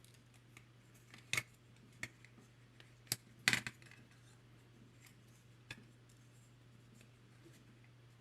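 Steel wire track rails and small spring clamps being handled and adjusted: a handful of short, sharp clicks and clinks, the loudest about three and a half seconds in.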